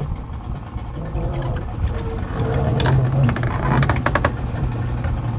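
Small boat's outboard motor running slowly, a steady low hum, with a few short clicks and knocks about halfway through.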